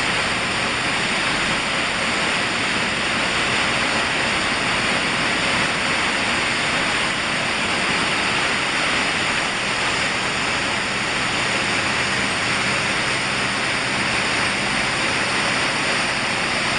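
Pumpkin seed cleaning and shelling machine line running: a steady, dense rushing noise of fans, motors and vibrating screens carrying seeds, with a faint high steady whine.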